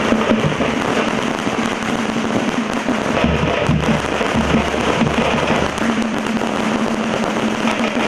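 A procession band of large side-slung drums beaten with sticks, playing dense, continuous drumming.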